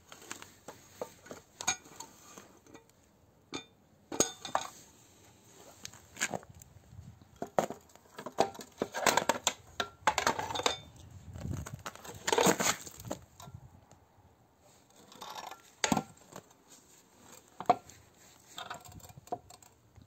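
Metal frames of old washing-machine wringers being handled and shifted about: irregular knocks, clinks and clatter, with a few longer scraping, rubbing stretches near the middle.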